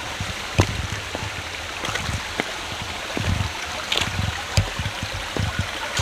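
Small mountain stream running and trickling over rocks, a steady rushing wash, with scattered low thumps and a sharp click about half a second in.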